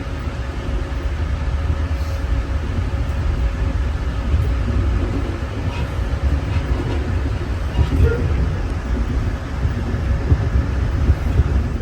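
Steady low rumble of a GO Transit passenger train running along the track, heard from inside the coach, with a faint steady hum and a few light clicks.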